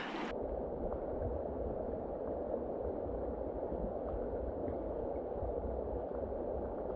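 Flowing river water heard with the microphone underwater: a steady, muffled rushing with the treble suddenly cut off about a third of a second in, as the camera goes under.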